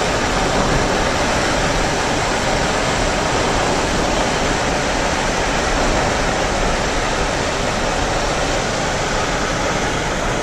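Steady rush of wind and road noise inside a moving car's cabin, with no changes in level.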